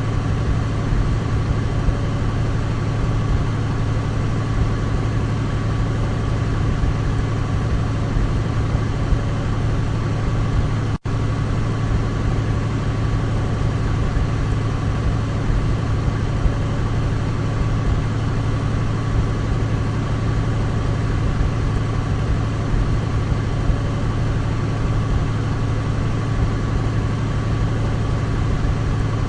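Douglas DC-3's radial piston engines running steadily at constant speed, a low, even drone with a faint steady whine above it. It cuts out for an instant about eleven seconds in.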